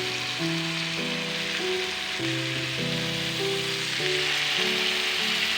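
Marinated chicken pieces sizzling steadily in hot oil and butter in a frying pan on high heat, just after being turned over, with soft piano music.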